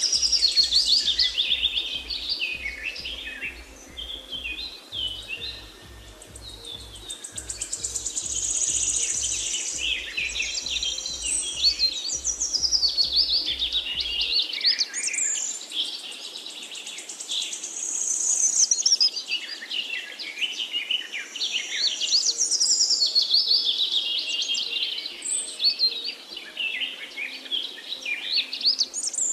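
A dense chorus of songbirds, many chirping and trilling at once in high, quick overlapping phrases that swell and fade in waves. A faint low regular pulsing runs underneath for the first half and then stops.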